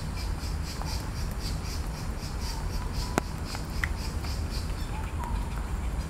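Insects chirping in a steady high pulse, about three pulses a second, over a low steady rumble. A sharp click comes a little after three seconds in, with a few faint short chirps.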